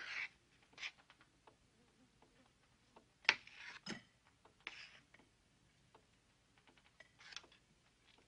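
A spoon scooping and patting mashed potatoes on a plate: scattered light clicks with a few short, soft scraping and squishing sounds, the loudest about three seconds in.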